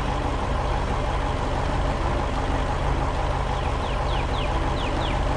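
Heavy construction machine engine running steadily with a low hum. In the second half comes a series of short, high, falling chirps, about two a second.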